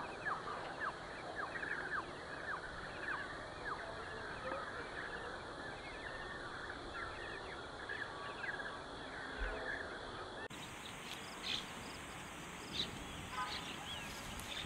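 Birds calling at a wetland: many short, quick chirps and trills repeating over a steady background hiss. The background changes abruptly about ten seconds in.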